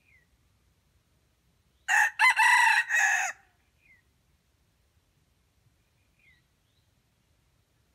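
A junglefowl rooster crows once, about two seconds in: a short crow of about a second and a half in several parts. Faint, short falling chirps of a small bird come now and then.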